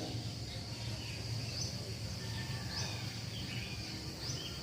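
Faint outdoor background: short rising bird chirps every second or so, over a steady high whine and a low hum.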